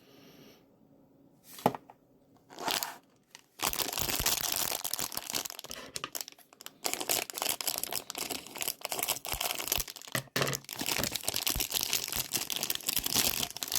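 Plastic packaging bag being torn open and crinkled by hand: a few light clicks, then, from a few seconds in, steady rustling and crackling of the plastic.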